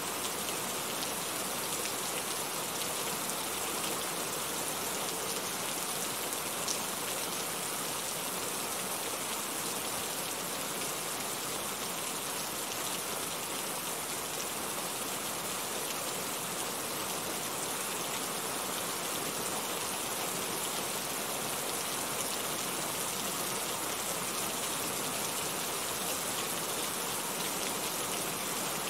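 Steady rain falling: an even, continuous hiss of dense drops with no pauses or changes in strength.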